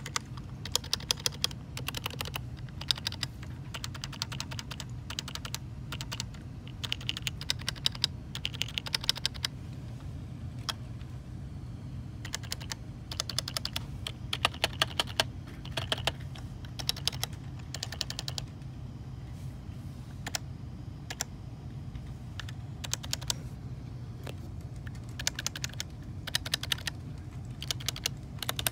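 Keys of an HHKB Professional 2 with lubed Topre switches being pressed in runs of a dozen or so keystrokes with short pauses between, over a low steady hum. The alpha keys sit on stock 45 g domes, and the modifiers and spacebar on heavier, about 60 g, BKE Redux domes.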